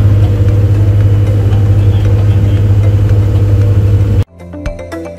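Boat engine running with a loud, steady low drone, heard from inside the cabin; it cuts off suddenly about four seconds in and background music takes over.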